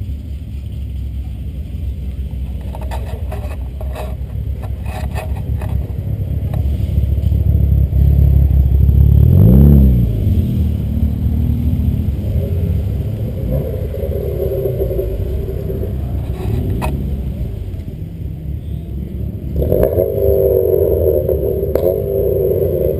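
Car engines running as cars drive by close on a road. One passes loudly about halfway through, its engine note rising and then falling. Another engine note comes up near the end as a car approaches.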